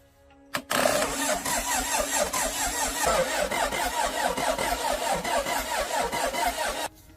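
ZS1115 single-cylinder diesel engine running with a fast, even knocking rhythm. It starts suddenly just under a second in and cuts off abruptly near the end.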